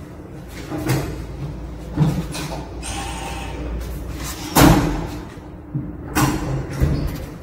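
A series of door bangs and knocks, about five in all, the loudest about four and a half seconds in, over a low steady rumble.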